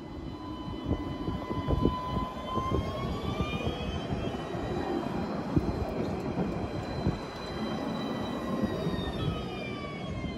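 Alstom Citadis 305 electric tram passing close by. Its traction drive whines, the whine rising in pitch a few seconds in and dropping again near the end, over the rumble and knocks of steel wheels on the rails.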